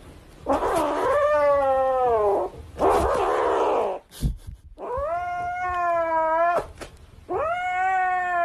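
Cat yowling: three long, drawn-out wails, the first sliding down in pitch, with harsh noisy stretches near the start.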